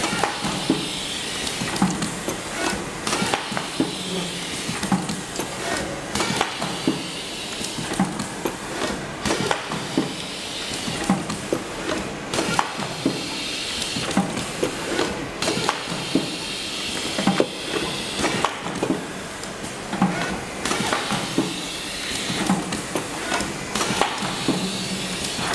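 Ultrasonic welding machine for A4 folders at work: irregular clacks and knocks over a steady hiss.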